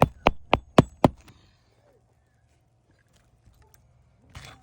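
Hammer driving a roofing nail through an asphalt shingle: a quick run of five sharp blows, about four a second, in the first second or so. A short scuff follows near the end.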